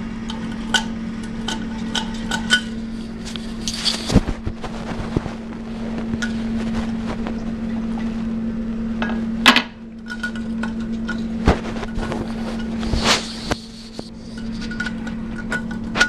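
Scattered clicks, clinks and knocks of hands handling a porcelain toilet tank lid and its push button, over a steady low hum.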